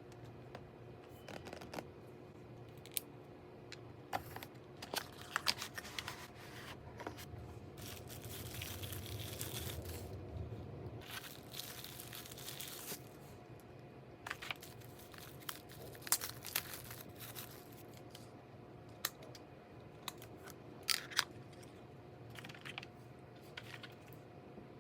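Packaging being handled and opened: rustling and crinkling, with scattered sharp taps and clicks and a longer stretch of rustling around the middle.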